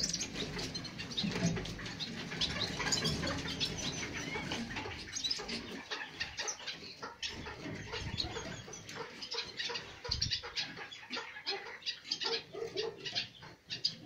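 Small caged songbirds chirping, with many short, high chirps overlapping. A low rumble of movement runs under them for the first few seconds.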